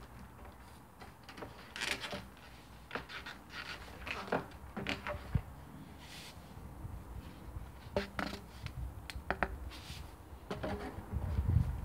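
Plastic downpipe being handled and fitted into the top of a plastic water butt: scattered knocks, clicks and scrapes of plastic on plastic, with a low rumble near the end.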